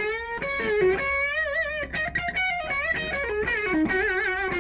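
Fender American Performer HSS Stratocaster electric guitar playing a slow single-note lead melody with sustained notes, bends and wide vibrato: an expressive 'feeling' passage with less distortion than the heavy rhythm part.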